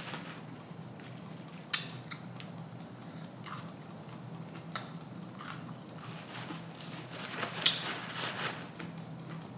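A person biting and chewing crunchy fried food: scattered crisp crunches, with sharp cracks about two seconds in and near the eight-second mark, where a run of crunching follows. A steady low hum is under it throughout.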